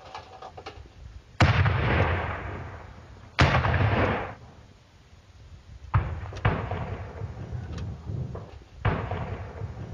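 Weapons fire: a run of sharp shots or blasts, the two heaviest about a second and a half and three and a half seconds in and more from about six seconds on, each with a long fading echo, with smaller cracks between.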